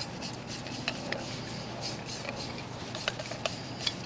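Ultra-compact backpacking stove burner being twisted off a screw-thread gas canister: metal threads rubbing, with a scattering of small, light clicks.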